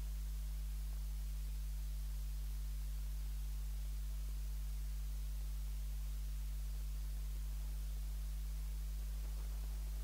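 Steady low electrical mains hum, with no other sound: the audio feed carries no programme here, only hum and faint hiss.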